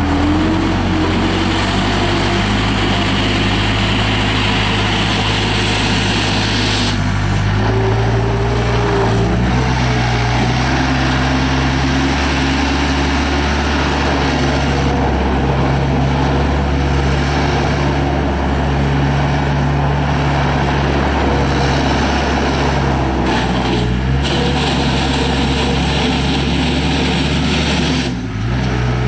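Cummins 4B naturally aspirated four-cylinder diesel of a Case 40XT skid steer loader running steadily while the machine is worked, its engine note shifting a few times, with a brief dip near the end. A higher hiss over the engine stops about seven seconds in.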